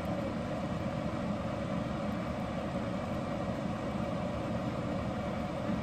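Steady low hum with an even hiss over it, unchanging and without separate knocks or clicks.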